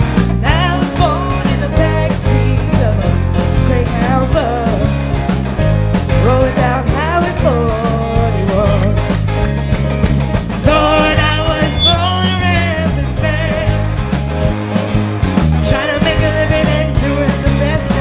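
Live rock band playing: electric guitars, bass, drums and keyboard with a woman singing lead over them.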